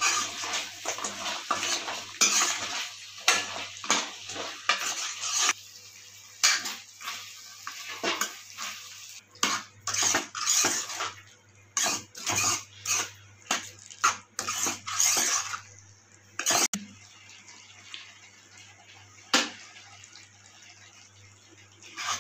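Spatula scraping and knocking against a kadai while stirring fried idli balls in thick sauce: quick, frequent scrapes and clacks for most of the time, then it goes mostly quiet with a couple of single knocks near the end.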